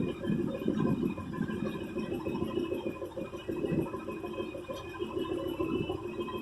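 Chevy K30's 468 big-block V8, fed by a Holley carburetor with no choke, running cold on a little held throttle because it won't yet idle on its own.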